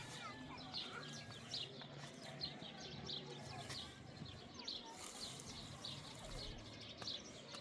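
Faint small birds chirping, short high chirps repeating every half second or so.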